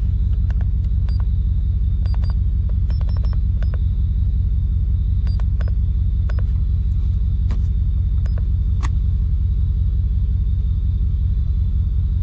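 First-generation Ford Raptor's V8 idling in park, heard from inside the cab as a steady low rumble. Over it come a dozen or so short clicks, some with faint beeps, from the buttons of a handheld OBD scan tool being pressed to read the trouble codes.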